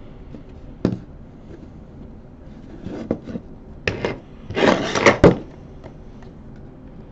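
Hand handling of a stereo microscope and its parts: a sharp knock about a second in, then a run of knocks and rattles, loudest in a short clattering scrape near the middle.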